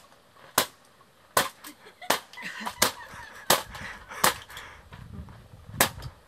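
Empty aluminium drink cans being crushed flat under a boot, stamped on one after another: seven sharp cracks, about one every 0.7 s, with a longer pause before the last. Laughter can be heard between the stamps.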